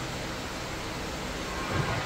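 Automatic case clamp machine running: a steady mechanical hiss and hum, with a faint whine coming in about a second and a half in and a short low thump near the end.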